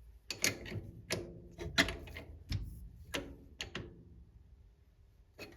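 A string of sharp metallic clicks and clinks at irregular spacing: hand adjustment of the lathe's tool post as the cutting tool's height is set.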